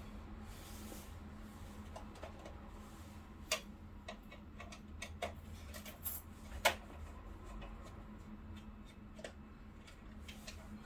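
Irregular small clicks and taps, two sharper ones standing out, over a steady low hum.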